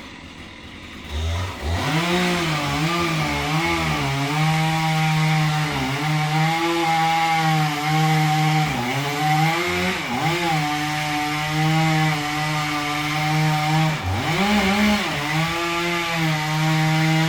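Chainsaw cutting into the trunk of a liquidambar tree being felled. It revs up about two seconds in, then runs at high revs with its pitch dipping and recovering several times as it works through the wood.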